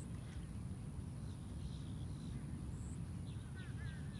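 Small birds chirping over a steady low rumble, with a quick run of short chirps near the end.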